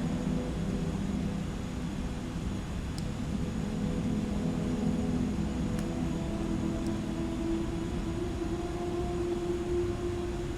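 A steady low rumbling drone with several sustained low hums that shift slowly in pitch.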